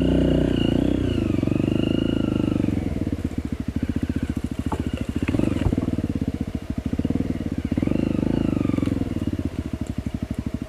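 Off-road trail motorcycle engine running at low to moderate revs, rising and falling with the throttle several times. Its individual firing pulses come through where it drops toward idle around the middle. A couple of sharp knocks come about five seconds in.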